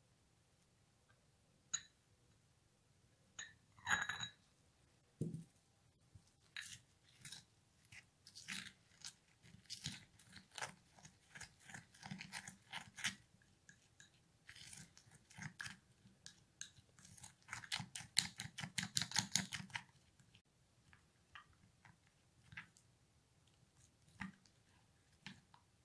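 Plastic spoon stirring and scraping a thick, dark paste of black seed, cocoa and coffee with lemon juice in a small glass bowl. A few separate clicks come first, then a steady run of short scraping strokes, quickest a little past the middle, thinning to scattered ticks near the end.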